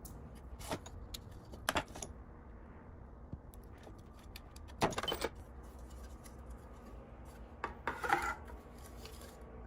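Scattered light clicks, knocks and rubbing of plastic parts of a K-Cup pod holder being handled and fitted together. There are a few separate knocks, the longest a cluster about five seconds in.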